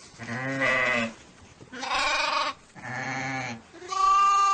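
Sheep bleating: four baas of close to a second each, some deep and some higher, the last one the highest.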